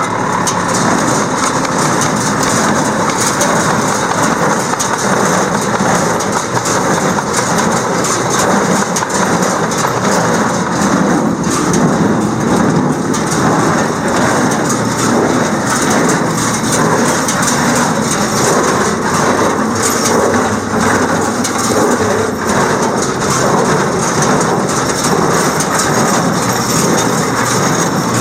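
New Holland 271 small square baler running, its mechanism making a loud, steady clatter.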